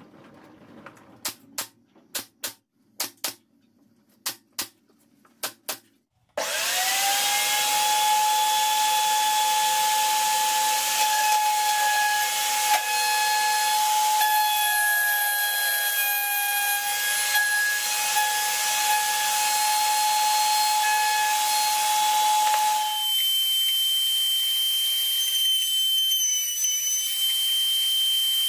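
A pneumatic brad nailer fires about ten sharp shots, often in quick pairs, nailing the wooden jig arms together. About six seconds in, a router starts with a sudden loud, steady high whine and runs on; its pitch changes about two-thirds of the way through.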